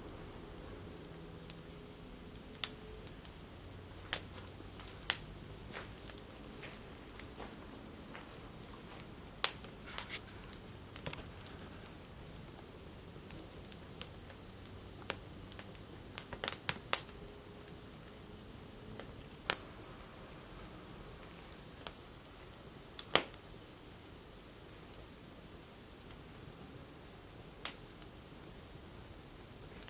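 Wood fire burning in a BioLite FirePit, crackling with sharp, irregular snaps and pops, a few much louder than the rest. A steady high-pitched trill runs underneath.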